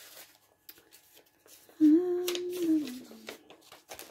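A person humming one short note about two seconds in, held for about a second and then sliding lower, with light rustling around it.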